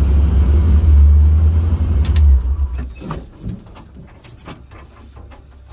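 Vehicle engine rumbling, heard from inside the cab, then cutting off abruptly about two and a half seconds in. Scattered light clicks and knocks follow.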